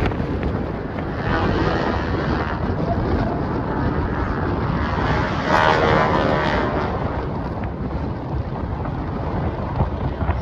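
Wind buffeting the microphone, a steady low rumble, with a brief louder swell about six seconds in.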